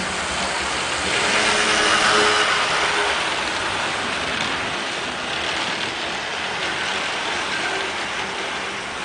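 HO-scale model train running close by: a streamlined diesel locomotive's motor and gears whirring and its wheels running on the rails as it pulls the passenger cars past. The sound is loudest about two seconds in, then eases off gradually as the cars go by.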